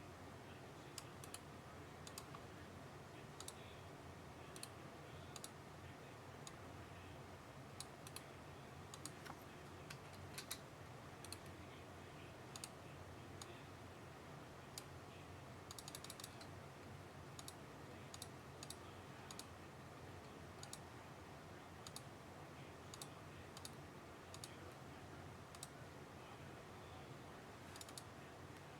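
Faint, irregular clicking of computer keyboard keys over a steady low hum.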